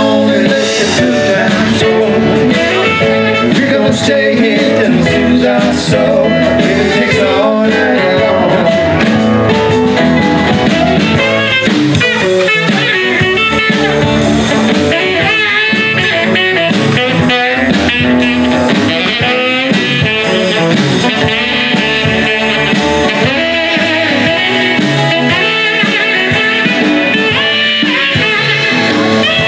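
Live blues band playing an instrumental break, with a saxophone playing lead over acoustic guitar, electric guitar and drums.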